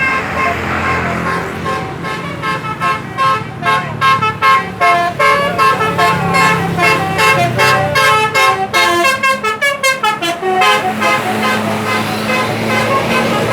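Bus telolet basuri multi-tone air horn playing a tune: a quick run of short pitched notes starting about two seconds in, getting faster near the end and stopping around eleven seconds, over the low steady sound of the bus engine.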